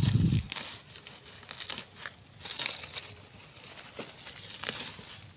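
A low thump at the start, then dry grass and dead leaves rustling and crackling as a hand pulls through them at the base of a small tree.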